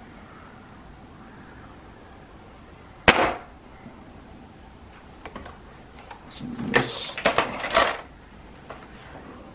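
.22 Gamo Swarm Fusion 10X Gen2 break-barrel air rifle firing once about three seconds in, a sharp crack. Around seven seconds comes a run of mechanical clicks and rattling as the rifle is broken open and cocked for the next shot.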